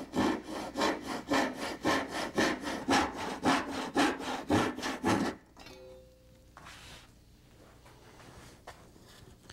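Japanese ryoba pull saw cutting a notch in a wooden spreader, with quick, even strokes at about four a second. The sawing stops about five seconds in.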